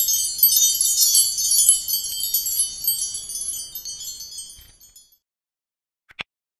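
A wind-chime sound effect of many quick, high chime notes that fades out about five seconds in. Near the end, a short click.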